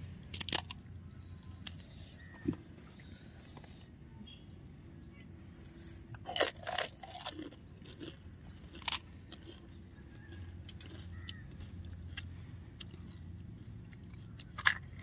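Crisp pani puri shells crunching as they are eaten: a few short, sharp crunches scattered over a low, steady background hum.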